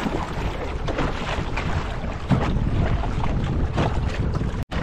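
Wind buffeting the microphone as a steady low rumble, with faint, indistinct voices of people around. The sound cuts out for an instant near the end.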